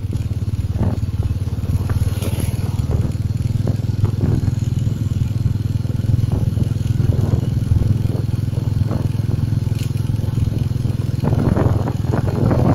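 Vehicle in motion on a paved road: a steady low engine-and-tyre hum with irregular rough bursts, heavier near the end.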